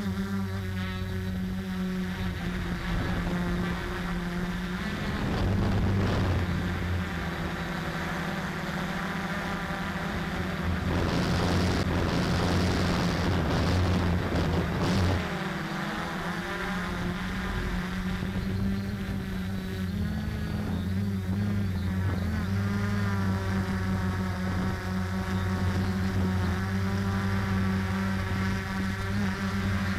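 Quadcopter's brushless motors and 10-inch carbon fibre props buzzing steadily in flight, heard from the onboard camera, with the hum wavering in pitch as the throttle changes and a louder rushing stretch about halfway through.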